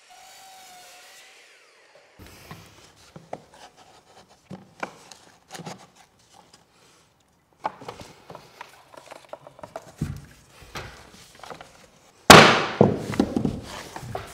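Miter saw blade coasting down faintly after a cut, then laminate floor planks being slid and set down on the subfloor with light knocks and rubs. Near the end a hammer strikes a pull bar hooked on the plank's end, a few sharp blows with the first the loudest, drawing the end joint tight.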